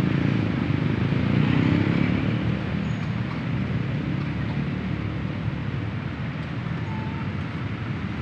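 Steady street traffic noise from passing cars and motorcycles, a little louder in the first two seconds.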